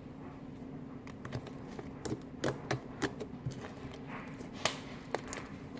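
Fluffy slime being squeezed and handled, giving irregular small clicks and pops a few times a second, over a steady low background hum.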